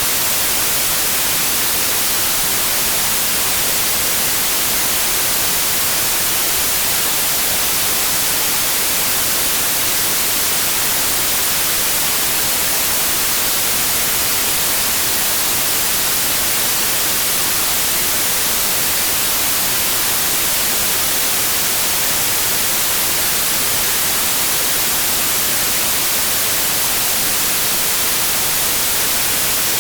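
Steady white noise: an even hiss strongest in the treble, with no changes.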